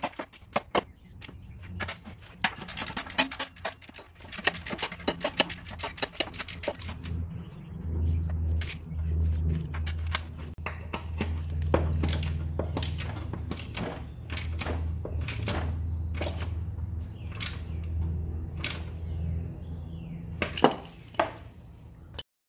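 Socket ratchet wrench clicking in quick runs with metal tool clinks as the blade bolt on a lawn mower engine's crankshaft is turned. A low hum runs under the clicks from about eight seconds in until near the end.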